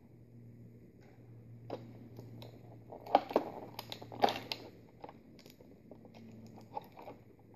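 Clear plastic blister tray crinkling and crackling as it is handled and a small part is pried out of it, with sharp crackles loudest about three and four seconds in.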